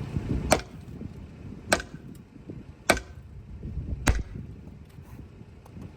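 Hammer blows on metal, four sharp strikes about a second apart, knocking loose a stuck brake caliper.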